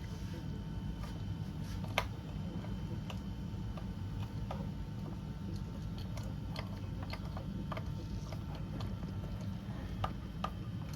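Irregular light clicks and taps of hand tools and the compression gauge fitting being worked into the engine's last cylinder, with a sharper click about two seconds in and two more near the end, over a steady low hum.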